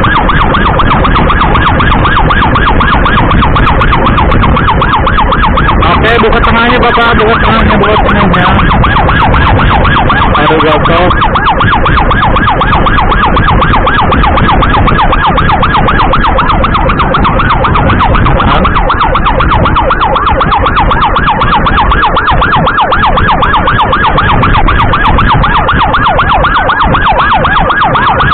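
Emergency siren sounding a fast, continuous yelp, very loud. A second, lower wavering tone joins briefly from about six to eleven seconds in.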